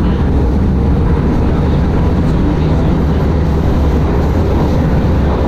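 Prague metro train running, a steady loud low rumble with no breaks.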